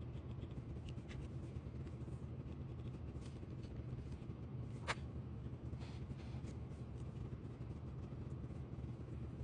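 Faint scratching and light clicks from small parts and tools being handled at close range, with one sharper click about five seconds in, over a steady low hum.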